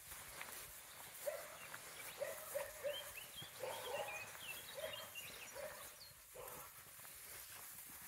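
A group of domestic cats giving a run of short meows, about nine calls over several seconds and thinning out near the end, with faint rustling steps in grass.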